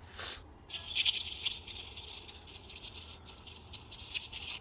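A brief hiss, then a Honda CR-V PCV valve being shaken by hand, its internal check valve rattling quickly: the valve is moving freely, a sign the valve is clean and working.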